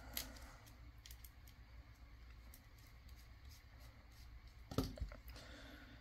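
Faint small clicks and handling noises from a precision screwdriver opening the screw terminals on a small plastic connector insert, with one louder tap about five seconds in.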